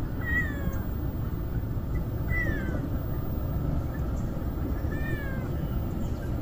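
Street cat meowing three times, short calls about two seconds apart, each rising briefly and then falling in pitch, over a steady low rumble.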